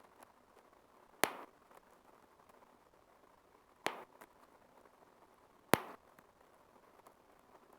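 Bubble wrap popping: three sharp, loud pops a couple of seconds apart, each with a short crackle after it, and a few faint ticks of the plastic being handled in between.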